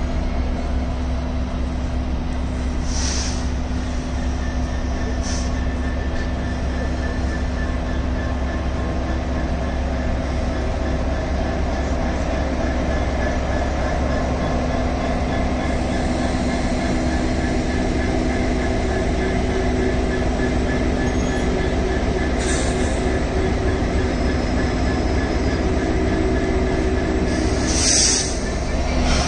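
Class 66 diesel-electric locomotive passing slowly at close range, its two-stroke EMD V12 engine running with a steady drone. A few short high-pitched noises cut in about three and five seconds in, and again near the end.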